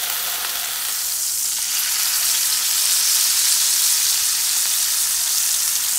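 Swordfish steak frying in bubbling fat in a cast iron skillet: a steady sizzling hiss that grows a little louder about two seconds in.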